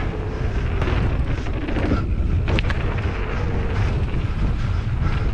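Wind buffeting the camera's microphone during a fast mountain-bike descent, over the rumble of knobby tyres rolling on a dusty dirt trail and the YT Jeffsy 27.5 full-suspension bike rattling. A couple of sharp clacks from the bike come about halfway through.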